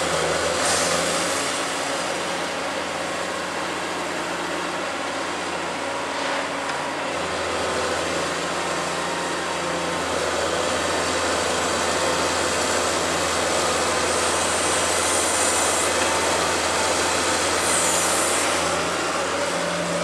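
Caterpillar 345C L hydraulic excavator's diesel engine running steadily, with a few brief high hisses, the clearest about three quarters of the way through and near the end.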